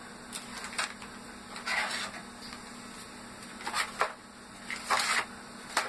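Plastic lure packaging crinkling and rustling in several short bursts as the packages are handled, with a few light clicks and taps.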